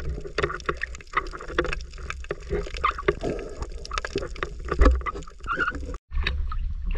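Sea water splashing and slapping against a small boat, with scattered knocks on the hull and wind rumbling on the microphone. The sound drops out for a moment near the end.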